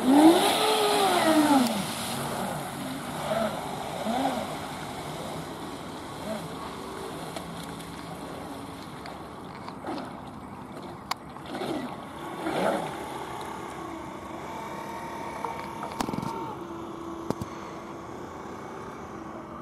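Electric radio-controlled speedboat's motor whining as the boat accelerates away across the water, its pitch rising then falling in the first two seconds. After that, shorter, fainter rises and falls of motor whine come as it throttles up and down further out.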